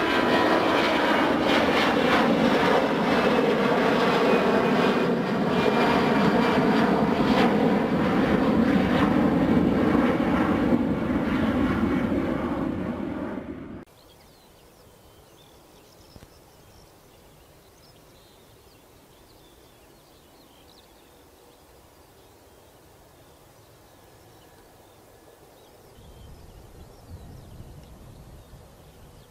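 Jet airliner engines running loud, a steady whine over a deep rumble, cut off sharply about halfway through. Then a faint outdoor background, with a low rumble rising near the end.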